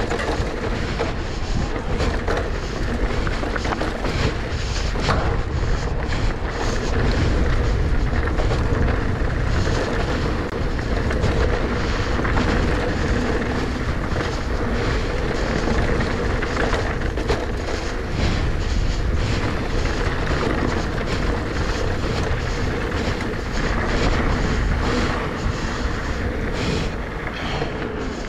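Electric mountain bike, a 2019 Giant Trance E+ 2, riding fast downhill on a dirt trail. Steady wind noise on the microphone and tyre rumble, with a constant run of small clicks and knocks as the bike rattles over rough ground.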